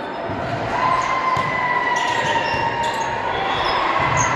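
Volleyball match sounds in a gym hall: a steady din of players and spectators, with a few sharp thuds of ball hits and shoe noise on the court floor. About a second in there is a long held tone that slowly falls.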